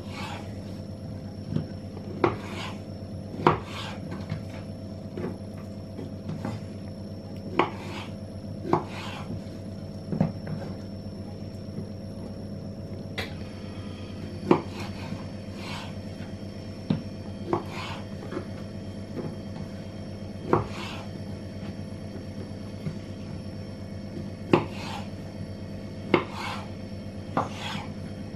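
Kitchen knife slicing boiled carrots into sticks on a wooden cutting board, the blade knocking on the board at irregular intervals, sometimes twice within a second, with a few sharper knocks.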